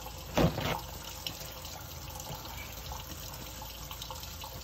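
Kitchen faucet running steadily into a stainless steel sink. About half a second in, a short loud rustling tear as a paper towel is pulled off the roll.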